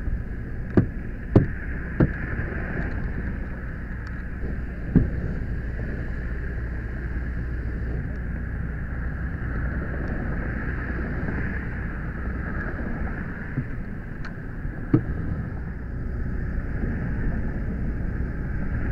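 Steady rushing hiss over a low rumble, like a fire hose stream flowing onto a burning car, broken by several sharp knocks, three close together near the start, one about five seconds in and one about fifteen seconds in.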